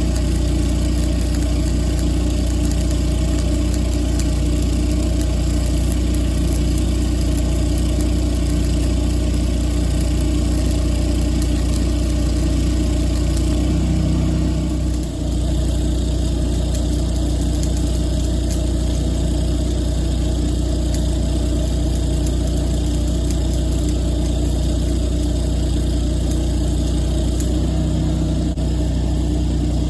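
An engine running steadily with a constant low hum. The higher hiss over it drops away about halfway through.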